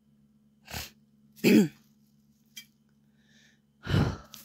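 A man coughing and clearing his throat close to the microphone: a short cough about a second in, then two louder, rough coughs about a second and a half and four seconds in, each dropping in pitch.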